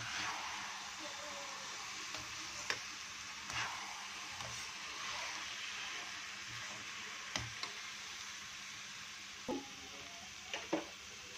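Apple halwa sizzling as it roasts in ghee in a kadhai, stirred with a slotted metal spoon. A steady frying hiss runs under a few sharp clicks and scrapes of the spoon against the pan.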